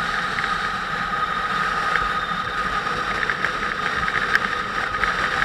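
Motorcycle engine running steadily during a ride, with a constant high whine over it.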